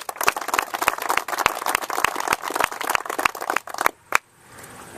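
Applause: many uneven hand claps that die out about four seconds in, ending with one last single clap.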